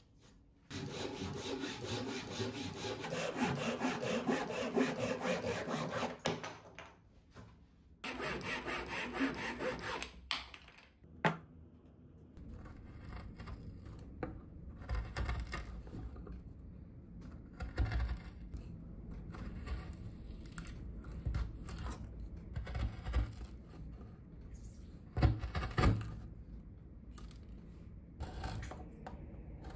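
Hand saw cutting a wooden board in quick, even back-and-forth strokes, in two spells with a short pause between. Then a wood chisel pares and scrapes a hollow into a small wooden block, with a few dull knocks.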